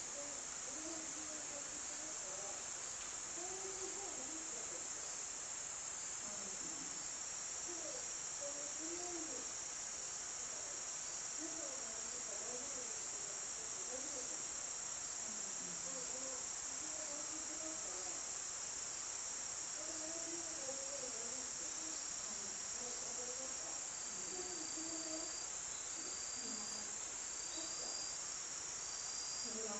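Steady high-pitched chorus of insects singing outdoors, unbroken throughout, with a second, fainter insect tone in short repeated pulses near the end.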